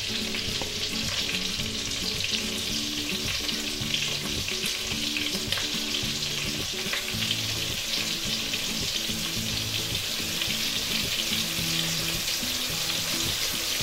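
Floured, egg-washed onion rings deep-frying in a pan of hot oil: a steady sizzle.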